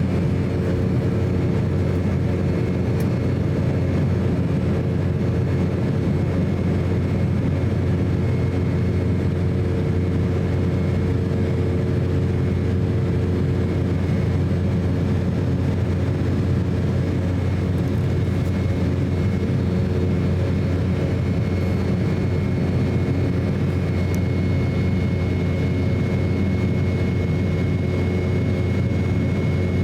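Steady cabin noise inside an Embraer E190 airliner in flight: the unbroken drone of its twin turbofan engines and the rush of air, with a few steady tones running through it. A high tone grows a little clearer about two-thirds of the way through.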